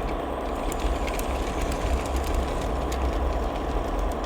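Lego 60052 freight train's electric train motor running steadily as the train backs along plastic track, with light irregular clicks from the wheels on the rails.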